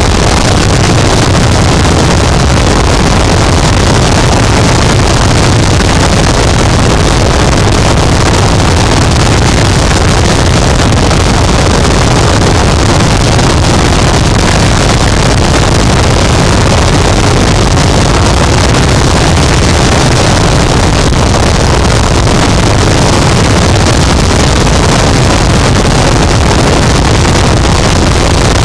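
Harsh noise wall: a loud, dense, unchanging wall of distorted static, heaviest in the bass, with no rhythm, pitch or variation.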